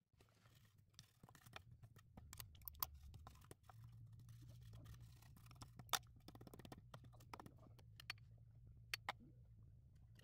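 Faint, scattered clicks and light taps from a printed circuit board being handled and touched with a tool, the sharpest about six seconds in, over a low steady hum.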